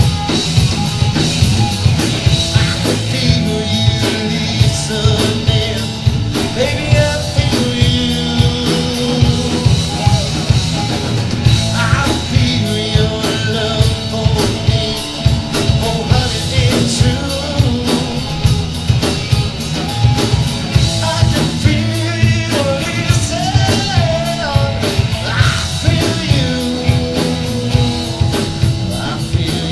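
A live rock band playing loud, with a drum kit keeping a steady beat under heavy bass and guitar.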